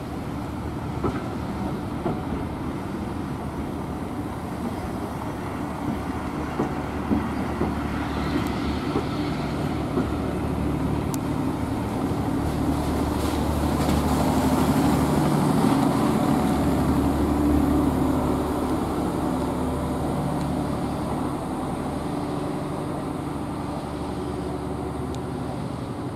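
Vintage railway passenger coaches rolling past at low speed: a steady rumble of wheels on rail with occasional clicks, swelling as the coaches pass close and easing off near the end.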